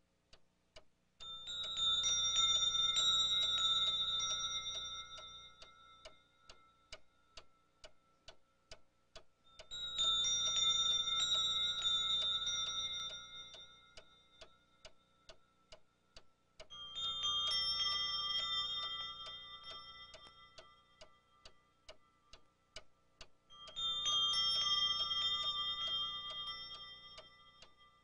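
Antique clock ticking fast and evenly, with four slow chiming strikes about seven seconds apart, each ringing out and fading away; the last two strikes are a little lower in pitch than the first two.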